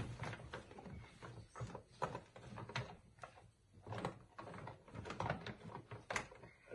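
Basset hound helping itself from a bag of dry dog food: irregular crunching of kibble and crinkling of the bag, a few sharp crunches or clicks a second.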